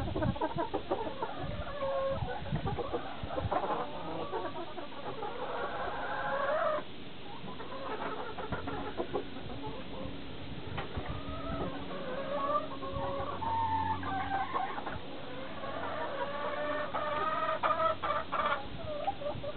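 A flock of backyard hens clucking and calling over one another without a break, with several longer drawn-out calls among the short clucks.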